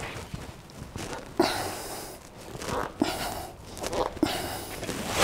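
A hand-shaped sheet-metal guard panel being bent by hand. The sheet flexes and pops with a rumbling shimmer a few times, about every second and a half, each time dying away quickly.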